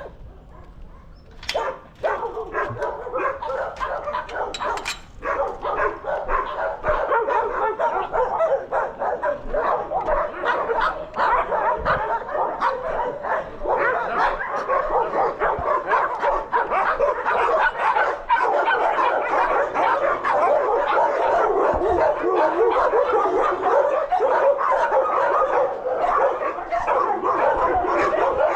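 Many kenneled dogs barking, yipping and whining at once, a continuous overlapping din that builds a few seconds in and stays loud.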